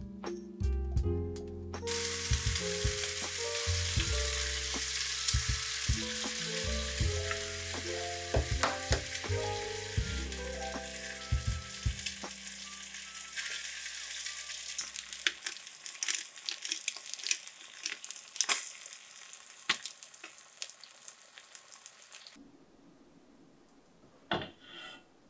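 Pumpkin rice porridge simmering in an enamel pot on a gas burner: a steady hiss with scattered taps of a wooden spatula against the pot as it is stirred. Gentle background music plays through the first half, and the hiss cuts off suddenly near the end.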